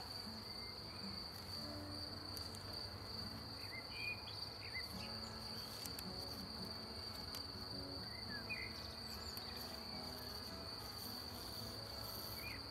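Honeybees buzzing in short passes around an open hive under a steady, high-pitched insect trill, with a few faint bird chirps.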